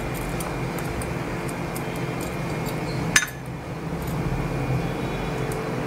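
Plastic spoon stirring thick fruit custard in a pot, with small clinks against the pot, over a steady background hum. A single sharp click comes about three seconds in.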